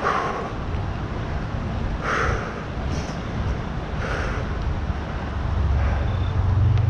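A cyclist breathing hard while riding a fixed-gear bike uphill, with a heavy exhale about every two seconds, over steady wind and rolling noise on the microphone. A low hum builds near the end.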